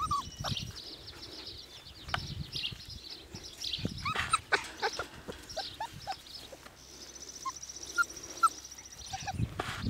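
Four-week-old Siberian Husky puppies giving short, high-pitched yips and whimpers while they play, with a few louder yelps about four seconds in and two more near the end, among scattered clicks and rustles.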